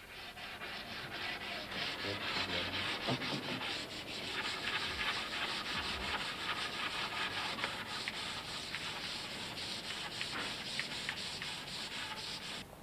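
Sandpaper rubbed over a wooden board by hand in quick, even back-and-forth strokes.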